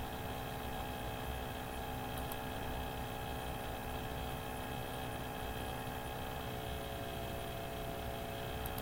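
Steady electrical hum with a faint hiss, several fixed tones holding unchanged throughout.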